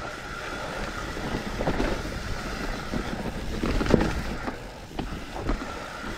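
Mountain bike descending a loose, slippery dirt trail covered in dead leaves: tyres rolling and scrabbling over the ground, wind on the microphone, and the bike rattling and knocking over bumps, the loudest knock about four seconds in.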